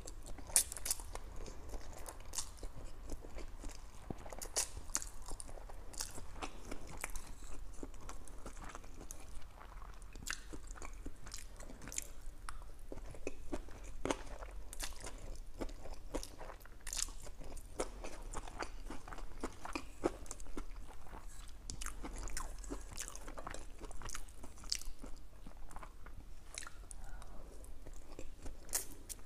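Close-miked chewing and slurping of lo mein noodles, with many short, irregular wet mouth clicks.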